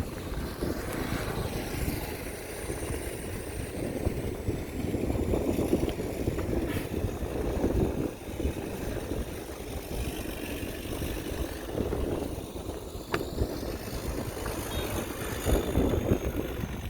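Heavy earthmoving machinery working: a steady engine rumble with a noisy rattle that swells and eases in loudness.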